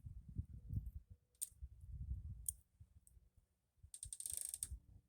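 Low handling noise with a few sharp clicks and a brief bright rattle near the end, typical of a pair of ratcheting locking forceps being picked up and worked, to clamp a scooter fuel line.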